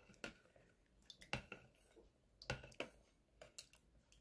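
Metal spoon knocking against the sides of a plastic pitcher and poking through pickled chiles in brine: a string of faint, irregular clicks and taps.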